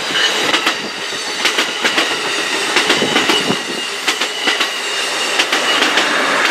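Amtrak California bilevel passenger coaches rolling past on the track, their wheels clattering in quick irregular clicks over the rail joints, with a thin high ringing from the wheels on the rail, growing louder as the cars come by.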